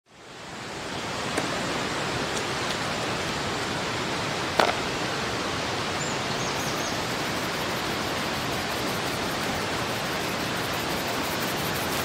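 River water rushing steadily, fading in over the first second. A sharp click cuts through about four and a half seconds in, and a brief high chirp comes around six seconds.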